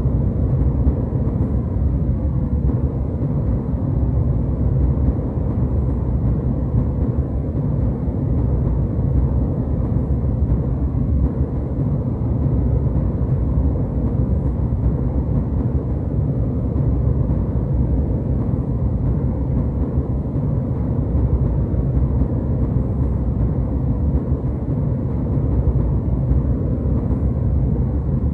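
Jet airliner cabin noise: a steady, deep rumble of engines and airflow, with little treble and no change in level.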